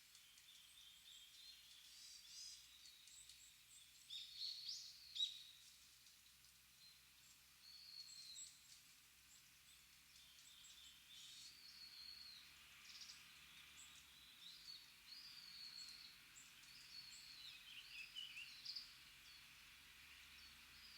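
Small wild birds calling on and off: short, high chirps and twittering notes, some with quick pitch slides, clustering loudest about four to five seconds in and again near the end, over a faint steady hiss.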